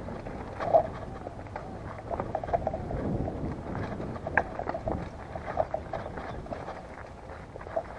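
Mountain bike rolling over a rocky dirt path: tyres crunching on stones, with the bike knocking and rattling at irregular moments over the bumps, under a rough rumble of ground and wind noise.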